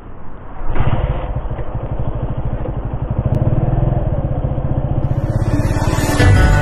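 Motorcycle engine running at idle with a fast, even pulse, jumping louder about a second in. Music fades in near the end.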